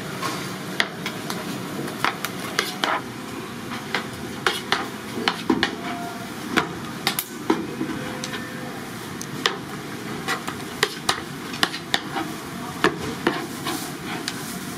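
Handmade fish cakes frying in hot oil, a steady sizzle, with frequent sharp clicks and knocks of metal utensils at irregular intervals.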